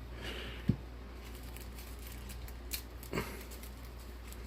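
Soft rustling and pattering from a plastic bag of artificial snow being shaken out into water, with a sharp knock about a second in and a couple of light clicks later.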